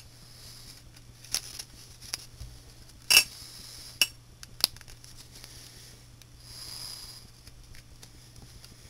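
A fingernail scraping excess mounting tack off the rim of a Rubik's cube center cap: small sharp plastic clicks and taps, several times, the loudest about three seconds in, and a longer scraping rub near the seventh second.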